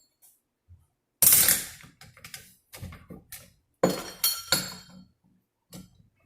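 Metal direct-clutch parts of a 46RE automatic transmission being handled and set down: a series of clanks and clicks, the loudest about a second in and again near four seconds.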